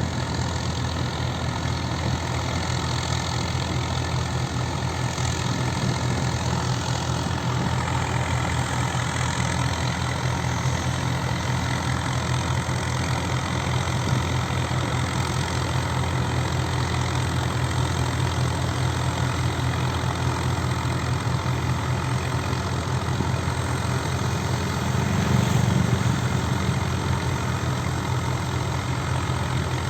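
Swaraj 744 tractor's three-cylinder diesel engine running steadily while driving a mini combine harvester, briefly louder about 25 seconds in.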